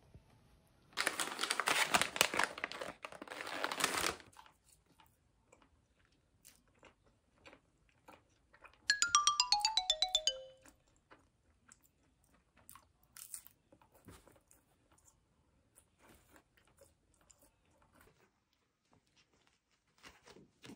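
A burst of crinkly crunching rustle lasting about three seconds, then a quick descending run of about a dozen bell-like notes, like a xylophone glissando sound effect. Faint scattered light taps between them.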